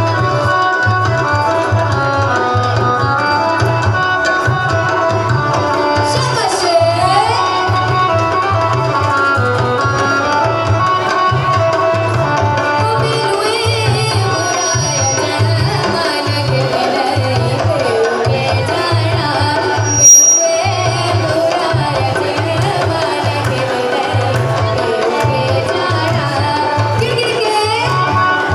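Indian dance music with tabla and a steady low drum beat under a melody, played loud. A brief sharp loud sound cuts through about two-thirds of the way in.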